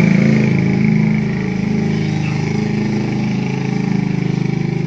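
A small engine running steadily at an even speed, loud and close.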